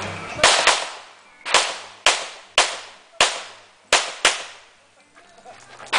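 Pistol fired in rapid succession, about eight shots, some in quick pairs, each sharp crack followed by a short ringing tail; the firing pauses for over a second near the end.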